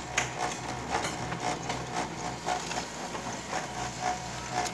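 Canon iR1024iF laser copier running a copy job: a steady whir with a held mid-pitched whine and repeated light clicks from its mechanism, a few a second.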